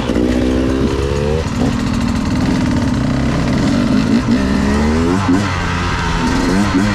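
Beta 250RR two-stroke enduro motorcycle engine accelerating under load. Its pitch rises several times as the throttle is opened and the gears are changed.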